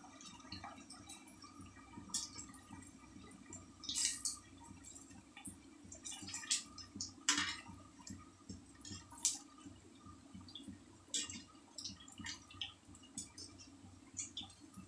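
Kakara pitha deep-frying in hot oil in a kadai: the oil sizzles with many irregular crackles and pops.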